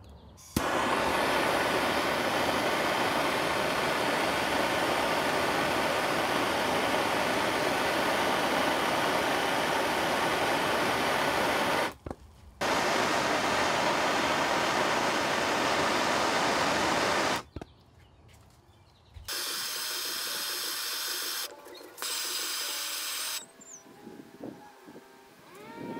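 Soldering torch flame hissing steadily while heating a copper pipe joint: it starts about half a second in, drops out briefly about twelve seconds in, and cuts off after about seventeen seconds. A second, quieter steady hiss follows for about four seconds.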